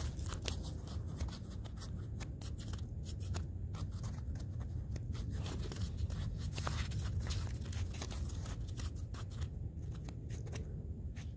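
Steady low rumble of wind on the microphone, with scattered small clicks and rustles of handling throughout.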